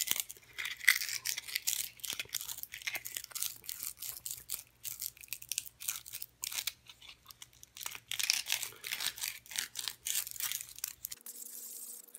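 Sandpaper wrapped around a wooden dowel, twisted back and forth by hand inside a drilled hole in a purpleheart wood spinner body, rasping in short, irregular scrapes with small pauses. The hole is being sanded out so the balls will fit.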